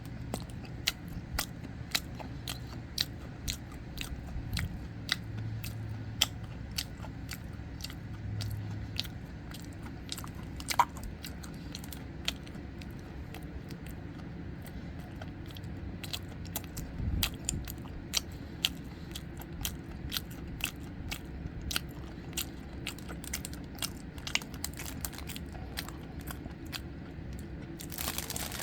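A person chewing and biting soboro red bean bread close to the microphone, with sharp mouth clicks a few times a second. A brief rustle starts near the end.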